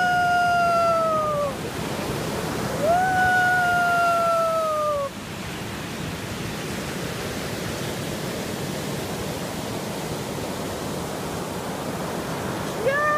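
Two long, high whining calls, each holding its pitch and then sagging, in the first five seconds, and shorter falling calls near the end, over the steady wash of ocean surf.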